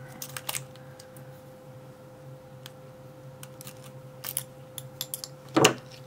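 A few small metallic clicks of a key in an ASSA Ruko 2 padlock as the lock is handled, with one louder knock about five and a half seconds in, over a faint steady hum.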